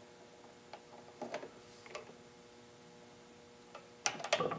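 Ratchet torque wrench clicking as it tightens a valve rocker jam nut on a Kohler Courage XT lawn mower engine: a few faint, spaced ticks, then a louder cluster of clicks and metal rattles near the end.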